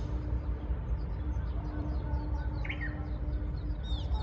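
Small birds chirping in short, scattered calls over a steady low wind rumble on the microphone, with a faint steady low hum running underneath.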